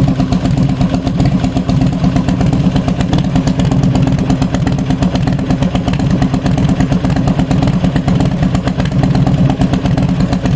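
Buell XB9S air-cooled V-twin running steadily through an HP Corse full exhaust with a tea-strainer-type inner silencer (baffle) fitted. The pulsing exhaust note holds an even speed throughout, with no revving.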